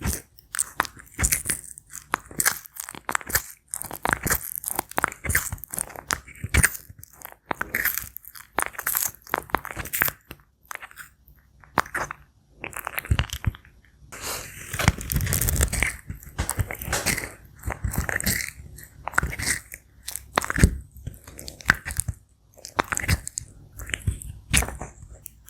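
Sulcata tortoise biting and chewing star fruit: repeated crunching bites at an irregular pace, with a denser stretch of crunching about halfway through.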